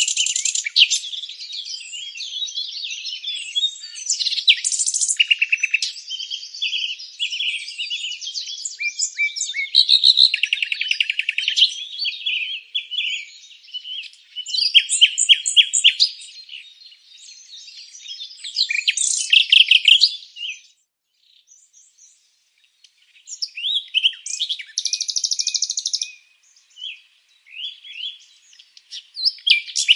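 Several small songbirds singing and chirping over one another, with fast trills and rapid runs of notes. The singing breaks off briefly about two-thirds of the way through, then resumes.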